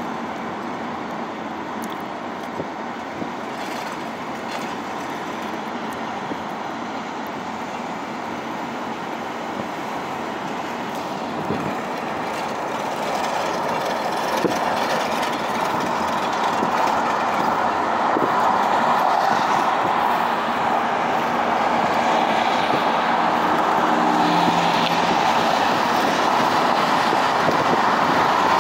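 Road and tyre noise from a car, heard inside the cabin as a steady roar that grows louder and brighter from about a third of the way in as the car speeds up onto the freeway.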